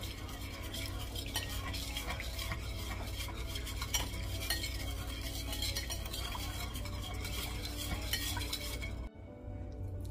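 Metal wire whisk beating Dijon mustard and white wine in a ceramic pie dish: rapid ticking and scraping of the wires against the dish. It stops abruptly about nine seconds in.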